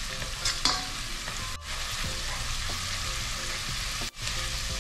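Minced garlic and ginger sizzling in hot oil in a cooking pot, a steady frying hiss. The sound cuts out very briefly twice.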